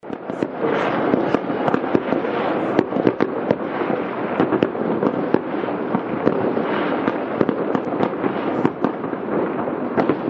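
Many fireworks and firecrackers going off at once: an unbroken crackle thick with frequent sharp pops and bangs.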